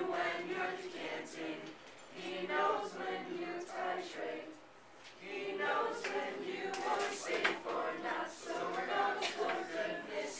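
A group of teenage voices singing a carol together from lyric sheets, in phrases broken by short pauses.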